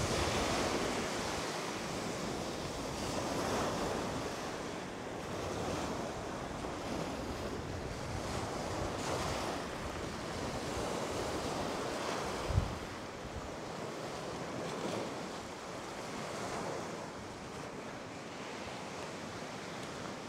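Lake waves breaking and washing up on the shore, surging every few seconds, with wind rumbling on the microphone. A single short low thump about twelve seconds in.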